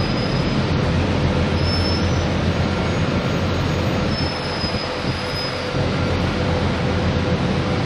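A 4.8 m roller core-veneer dryer running: a steady, loud mechanical rumble with a constant hum, and a high metallic squeal that comes and goes, about two seconds in and again from about four to nearly six seconds.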